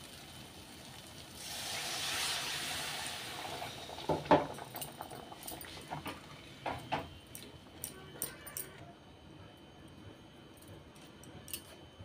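Water poured into a hot aluminium kadhai of fried masala paste, hissing for about two seconds, then a steel spatula clinking and scraping against the pan as the water is stirred in.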